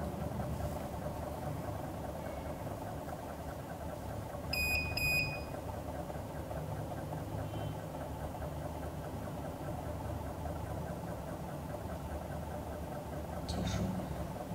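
Portable near-infrared grain analyzer running its reference scan: a steady low mechanical hum, with two short high beeps in quick succession about five seconds in.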